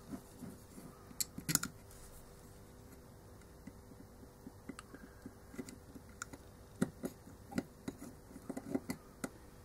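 Small screws and washers being handled and turned into the housing of a pressure-chamber PA horn driver with a hand screwdriver: scattered light clicks and taps, a couple about a second in, then a quiet spell, then more of them through the second half.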